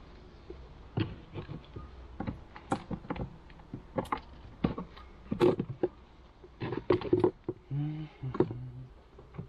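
Wooden beehive frames being pried loose with a hive tool and lifted out of a wooden hive box: an irregular string of sharp wooden knocks, clicks and scrapes.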